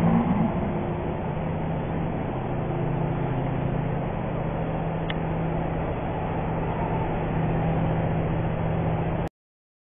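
Steady low hum of vehicle engines and traffic, with a constant low drone, stopping abruptly near the end.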